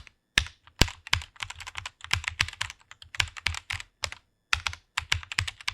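Typing on a computer keyboard: a fast, uneven run of keystroke clicks, with a short pause just after the start and another about four seconds in.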